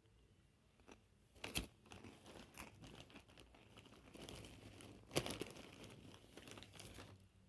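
Plastic packaging crinkling and rustling as it is handled, irregular, with two sharper crackles about a second and a half in and about five seconds in.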